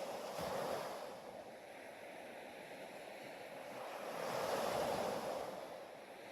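Ocean surf: waves swelling and washing in, two surges about four seconds apart.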